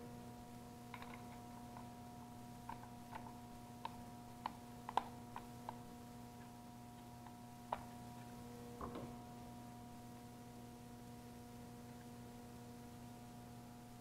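Light, scattered clicks and taps of a plastic toy quadcopter's frame and landing gear being handled and turned over, for about the first nine seconds, then only a steady low electrical hum.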